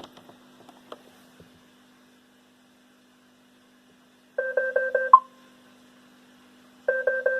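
iRobot Roomba (500/600 series) in diagnostic mode, its speaker playing a quick run of rapid two-tone beeps ending in one short higher beep, then the same run again about two and a half seconds later, as it tests the charging port with the charger plugged in. A few faint clicks come just before, as the plug goes in.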